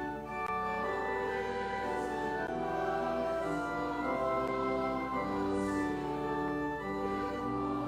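Organ playing a slow hymn tune in long held chords.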